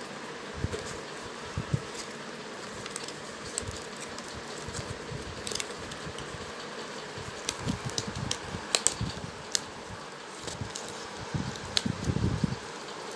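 Hands handling packaging: scattered small clicks and taps, with a cluster of soft knocks near the end, over a steady fan-like hum.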